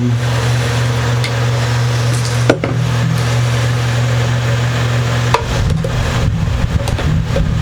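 A guitar being handled on a workbench while its screw holes are inspected: a couple of sharp wooden knocks, about two and a half and five and a half seconds in, then irregular rustling handling noise, over a steady low hum.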